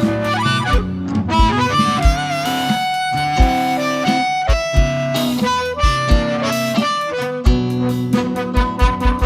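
Live blues band playing an instrumental: a harmonica leads with held, bending notes over guitar and a steady kick-drum beat.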